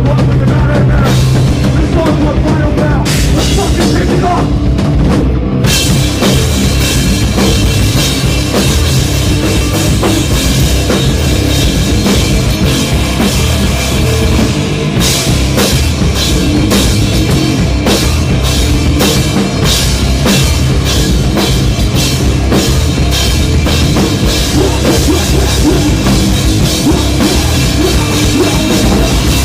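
Rock band playing loud, heavy rock with a drum kit driving it. The cymbals come in about six seconds in, and from about halfway on the drum hits fall in a steady rhythm.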